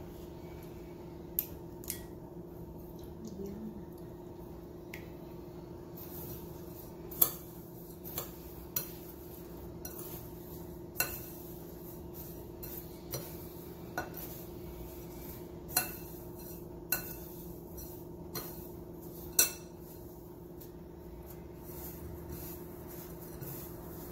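A metal spoon clinks against a ceramic bowl as squid pieces are turned in panko breadcrumbs: about a dozen sharp, irregular clinks, the loudest about seven seconds in. A steady low hum runs underneath.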